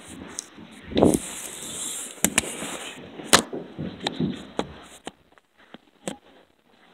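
A phone being handled and set down on a wooden floor, with a heavy thump and scuffling, then footsteps walking across the floor toward it as a string of sharp, irregular knocks that thin out near the end.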